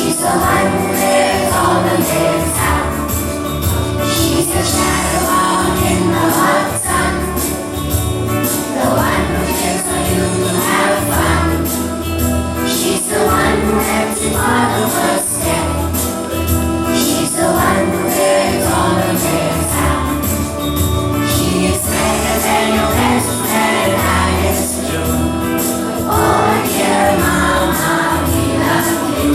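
A song with a group of voices singing over instrumental backing with a steady low beat.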